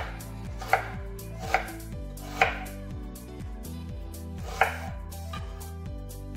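A knife chopping on a cutting board: five sharp, separate strikes at an uneven pace, with a longer gap before the last one.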